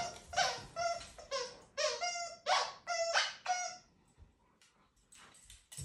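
Rottweiler whining: a quick run of short, high-pitched whines that stops about four seconds in.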